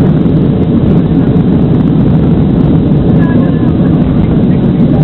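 Boeing 737-700's CFM56 jet engines at takeoff thrust, heard inside the passenger cabin as a loud, steady low rumble.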